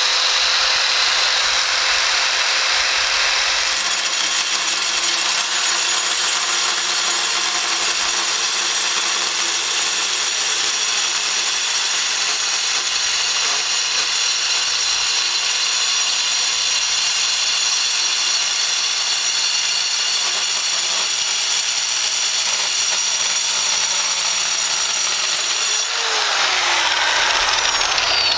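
Angle grinder with a diamond cut-off wheel running and cutting steel: a loud, steady, high grinding whine. A couple of seconds before the end, the motor's pitch falls.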